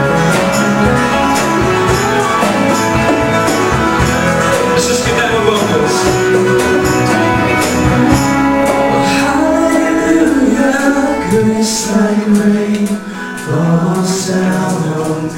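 A live band playing a worship song, with guitars, bass, drums and tambourine under a melody line. It gets quieter over the last few seconds.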